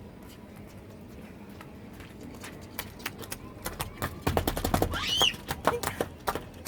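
Children splashing and stomping in rainwater: a quick run of splashes and slaps that starts about two and a half seconds in and is densest and loudest around the middle, with a short high squeal near the middle.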